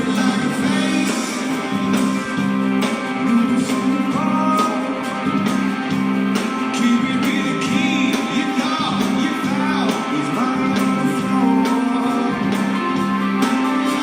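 Rock band playing live, with strummed guitars to the fore over a steady backing.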